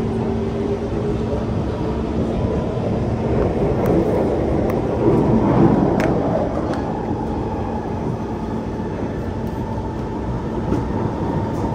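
Interior running noise of a Kawasaki C151 metro train in motion: a steady rumble of wheels on rail with a low steady hum. The hum dies away in the second half while a higher tone comes in. Sound swells about five to six seconds in, with a few light clicks around the middle.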